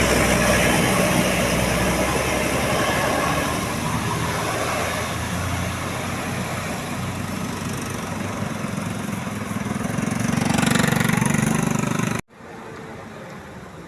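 Tour bus engines and road noise: a loud, steady rumble that swells about ten seconds in, then cuts off abruptly near the end.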